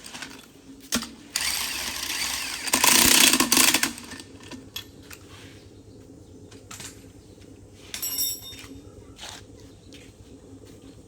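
Metalworking noise: a loud hissing burst of a couple of seconds, then scattered knocks and a brief rattle with some ringing about eight seconds in, over a faint steady hum.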